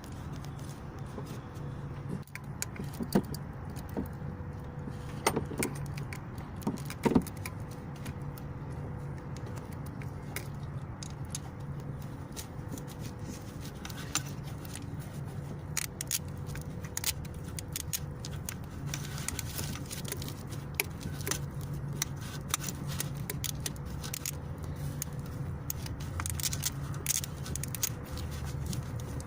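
Scattered small metallic clinks and rattles over a steady low hum, with a few sharper knocks a few seconds in.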